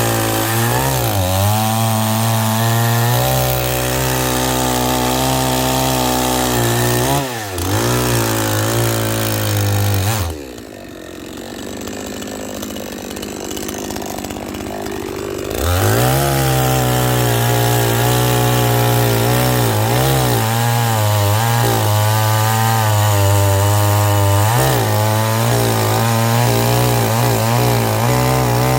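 Chainsaw cutting firewood, its engine pitch sagging and recovering again and again as the chain bites into the wood. About ten seconds in it drops to a much lower, quieter run for about five seconds, then revs back up and cuts on.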